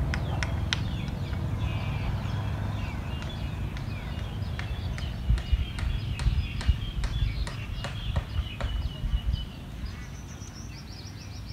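Small birds chirping and calling over a steady low wind rumble on the microphone, with a run of sharp clicks through the middle. Near the end comes a quick series of high chirps.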